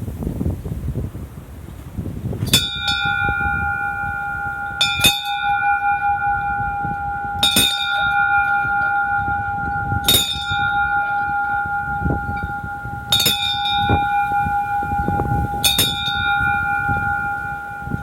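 A "happiness bell" struck six times, about every two and a half seconds, its tone ringing on between strikes.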